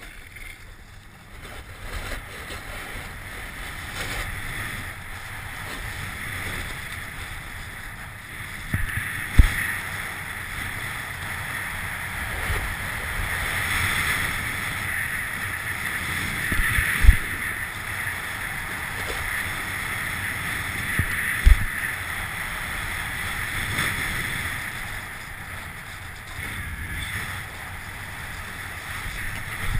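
Snowboard sliding and carving over hard-packed snow: a steady rushing scrape that swells and eases through the turns, with wind on the microphone. A few sharp low thumps break in, about a third of the way in, past the middle, and a few seconds later.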